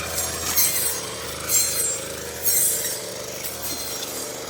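Grass-cutting machine running, with rasping bursts about once a second as it cuts.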